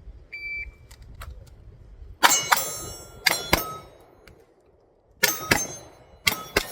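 A shot timer's start beep, then eight pistol shots fired in quick pairs, with steel targets ringing after the hits.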